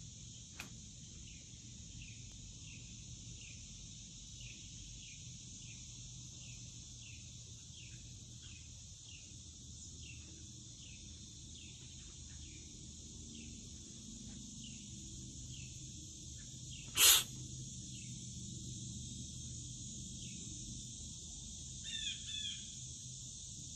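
Wooded backyard ambience: a steady high insect drone, with a bird giving short falling chirps about twice a second. About two-thirds of the way through there is one loud, sharp sound, and near the end a bird gives two harsh calls.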